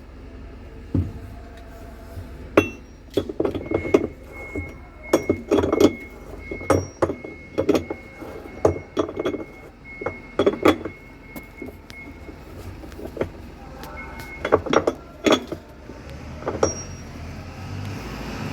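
Hard objects clinking and knocking irregularly as they are handled and set down, with dozens of sharp hits that cluster in the middle and again near the end. A faint steady high tone sounds through the middle stretch.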